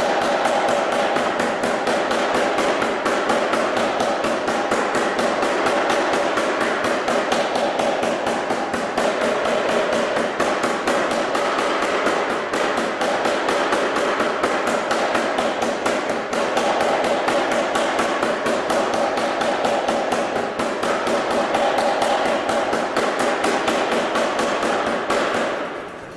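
Anyang 25 kg self-contained air power hammer striking a red-hot steel bar on the anvil in a rapid, continuous run of blows. The blows stop shortly before the end.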